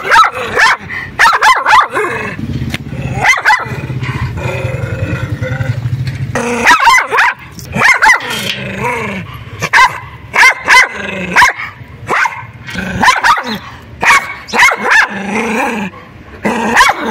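Small shaggy white dog barking fiercely over and over in short sharp barks, with a long low growl from about two seconds in to past six seconds. These are aggressive warning barks at a person coming close.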